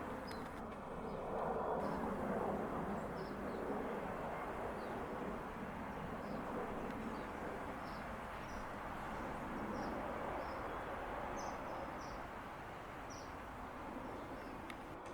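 Short, high bird chirps, about one a second, over a steady outdoor background hum.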